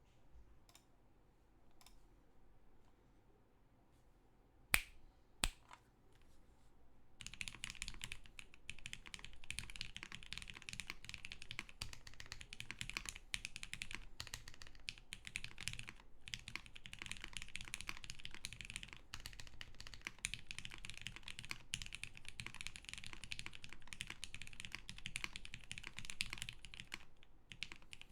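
Keycult 1/65 custom mechanical keyboard with lubed, filmed 'vintage' Cherry MX Black linear switches on an aluminium plate and GMK keycaps: a few scattered key presses and two sharp, louder clacks about five seconds in, then steady fast typing from about seven seconds on.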